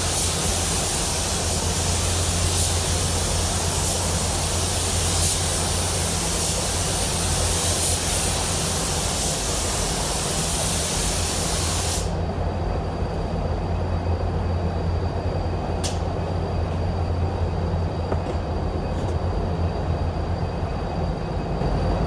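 Air-atomising paint spray gun hissing steadily as sealer is sprayed onto a truck bedside panel, the trigger released about halfway through so the hiss cuts off suddenly. A steady low hum of the paint booth's ventilation runs underneath throughout.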